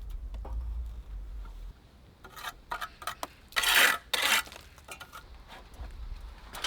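Steel trowel scraping mortar on brick in several short rasping strokes, the loudest about three and a half to four and a half seconds in. A low rumble fills the first second and a half.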